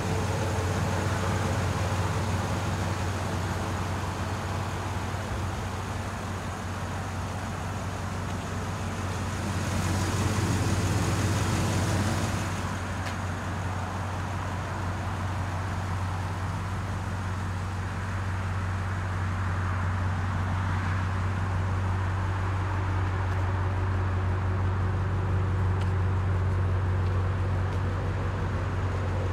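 2012 Ford F-250 Super Duty pickup's engine idling steadily, a low even hum. A louder hiss rises over it for a couple of seconds about ten seconds in.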